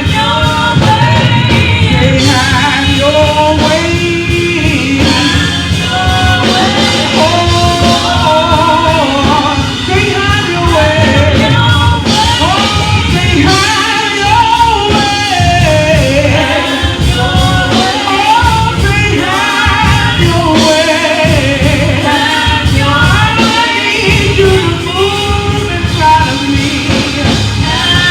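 Live gospel singing with a band: voices sing over drums, bass and keyboard in a steady, driving beat.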